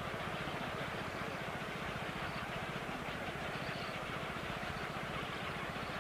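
A small engine running steadily, with a fast, even low pulsing under a hiss.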